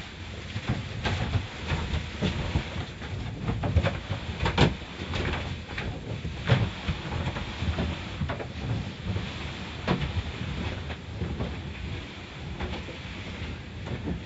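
Automatic tunnel car wash heard from inside the car: cloth strips and brushes slap and scrub across the windshield and body over a steady rumble of spraying water and machinery. The slaps come irregularly, and the loudest land about four and a half and six and a half seconds in.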